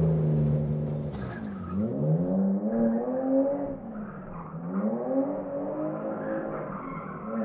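BMW 3 Series saloon drifting: the engine revs sweep down and up again twice, with tyre squeal over it.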